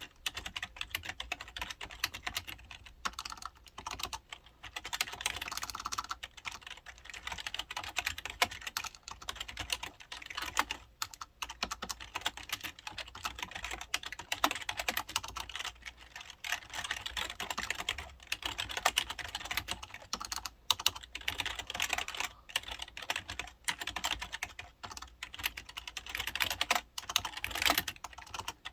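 Typing on an IBM KB-9930 membrane keyboard from 1998: a fast, uneven run of soft key clicks, with a few short pauses.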